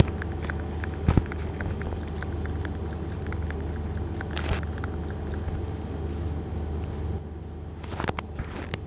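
Steady low rumble of a moving road vehicle, with light regular ticks and a few louder knocks, one about a second in and a couple near the end.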